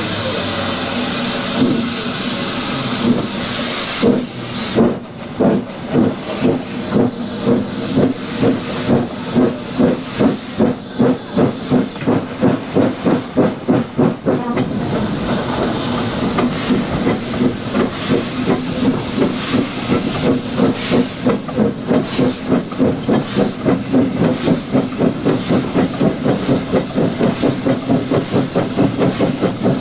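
Devonport Dockyard saddle tank steam locomotive No. 19 working along the line with a steady hiss of steam. About four seconds in, its exhaust beats start and quicken as it gathers speed, then settle into a fast, even beat over the continuing hiss.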